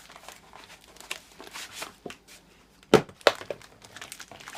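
Packing material rustling and crinkling as it is pulled out of a shipping box, with two sharp knocks close together about three seconds in.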